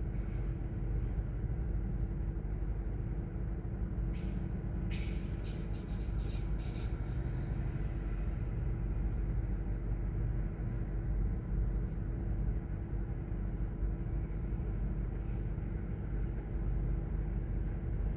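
Steady low mechanical rumble with a constant hum, and a quick run of sharp clicks or knocks about four to seven seconds in.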